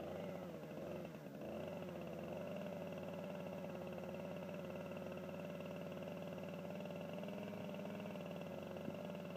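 Two-stroke chainsaw engine idling steadily, its pitch wavering for the first second and a half before settling. A single short click comes near the end.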